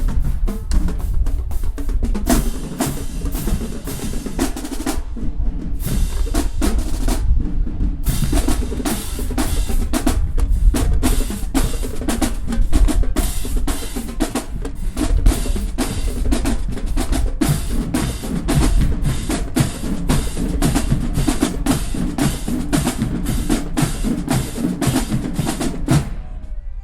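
Marching band drumline playing a fast cadence of snare and bass drums, with rolls. It breaks off briefly twice partway through, then starts again.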